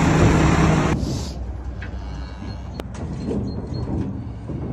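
Tractor engine running close by for about the first second, then giving way to a much quieter stretch with a single sharp click.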